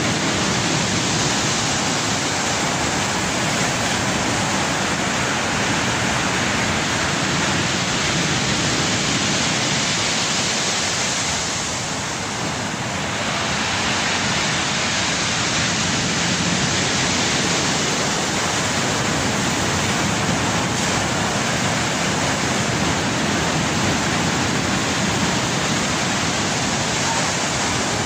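Storm surf on the Black Sea: heavy waves breaking and washing over the shore in a loud, steady rush of churning water, easing slightly for a moment about twelve seconds in.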